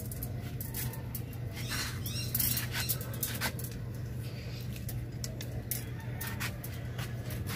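Strands of bonsai training wire clicking and rattling against each other as they are handled and pulled from a bundle, in many small irregular ticks, over a steady low hum.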